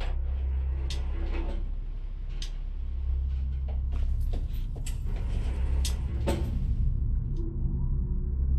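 A door being worked: sharp clicks and knocks of its latch and handle, scattered at first and then coming in a quick cluster, the loudest knock about six seconds in, over a steady low rumble.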